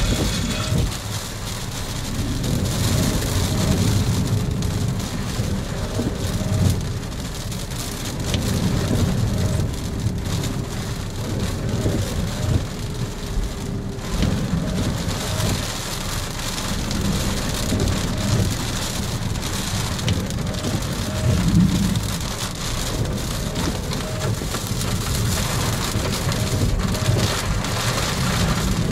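Steady rain falling in a thunderstorm, with a low rumble that swells and fades throughout.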